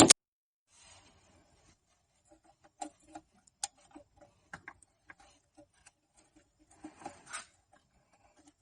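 Irregular clicks and taps of hand tools and engine parts being handled, with a sharp click right at the start and a short rubbing noise about seven seconds in.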